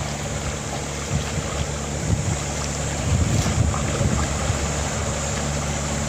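Wind buffeting the microphone on an open tidal flat, a gusty low rumble with a faint steady low drone underneath.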